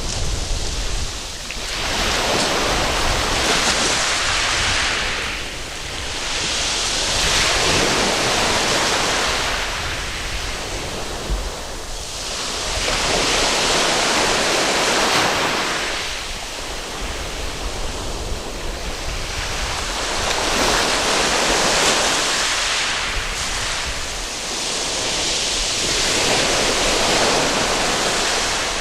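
Waves breaking and washing up a sandy beach, the surf swelling and fading in a slow rhythm, about every six seconds.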